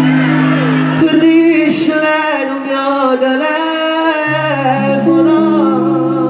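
Live Neapolitan pop song: a man singing into a microphone over keyboard backing with long held chords, the chord changing about four seconds in.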